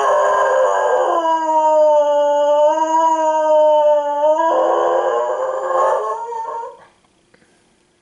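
A dog howling: one long howl of about seven seconds, holding a steady pitch through the middle, turning rougher and stopping about seven seconds in.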